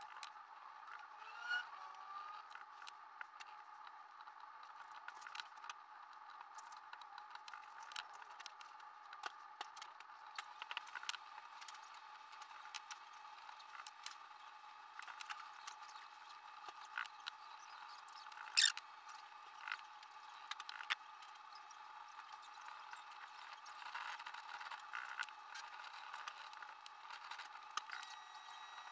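Stiff-bristled brush scrubbing over a paper stencil on a steel axe head: soft scrapes with many small scattered clicks, one louder click about two-thirds through, over a steady faint hiss.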